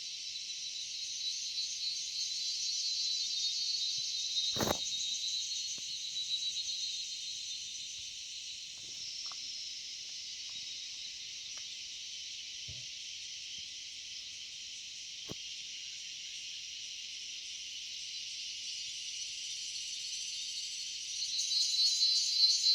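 Chorus of crickets and other forest insects: a continuous, dense high-pitched trilling that swells louder near the end. A single sharp click cuts through about four and a half seconds in.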